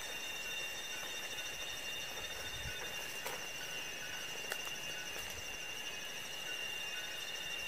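Insects chirring steadily: a continuous high-pitched tone with a faster, rapidly pulsing trill above it. Two faint clicks come about three and four and a half seconds in.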